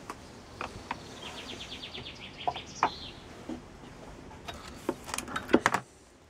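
Orgonite pieces and metal tubes being handled in a cardboard box: scattered clicks and knocks, with a cluster of the loudest knocks about five seconds in. A bird trills a fast run of high notes from about one to three seconds in, ending in a short falling flourish.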